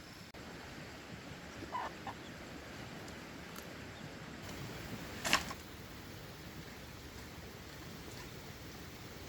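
Chickens clucking: a couple of short clucks about two seconds in and a louder, sharp call about five seconds in, over a faint steady hiss.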